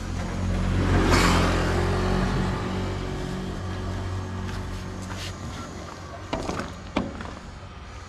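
A motor vehicle's engine passing close by: its low hum swells to its loudest about a second in, then fades slowly. A few sharp knocks come near the end.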